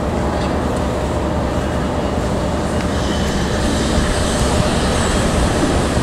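Diesel locomotive running close by with a freight train, a steady loud engine drone.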